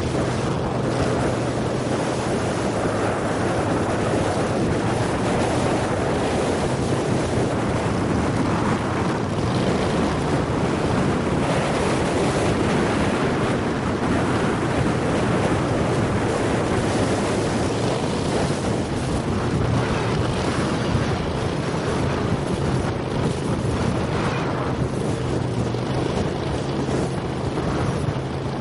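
Pro-Drive surface-drive mud motor running steadily at speed, with a steady low engine drone under water rushing past the hull and wind buffeting the microphone.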